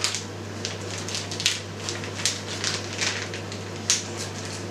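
Plastic vacuum bag crinkling and crackling in irregular bursts as a marinated raw chicken breast is worked into it by hand.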